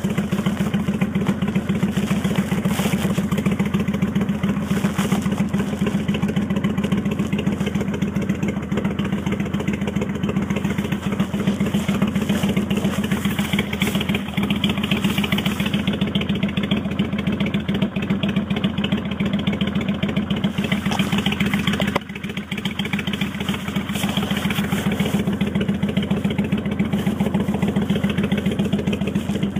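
Kawasaki Vulcan 800 V-twin running steadily through Vance & Hines Straight Shots pipes with the baffle plugs removed, giving a loud, open exhaust note. The level dips briefly about two-thirds of the way through.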